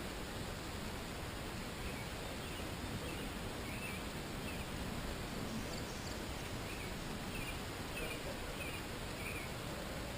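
Steady hiss of an amplified outdoor recording, with faint short high chirps: a few scattered ones, then a run of about six close together in the last few seconds.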